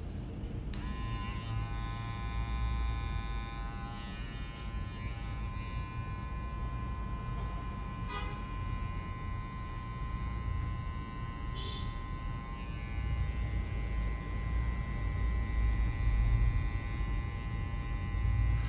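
Madeshow cordless hair trimmer switching on about a second in, then running with a steady buzz as it cuts hair around the ear and neckline.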